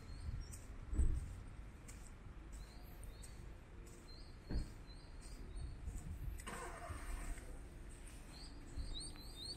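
Outdoor plaza ambience: small birds chirping in short repeated notes over a low traffic rumble, with a couple of dull thumps and a brief swell of noise, like a vehicle passing, about two-thirds of the way through.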